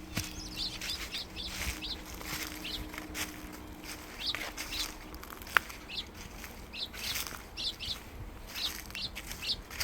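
Small birds chirping, short high calls repeated irregularly, over the crunch of footsteps on a leaf-covered trail. A faint steady low hum runs through the first half, and there is one sharp click about five and a half seconds in.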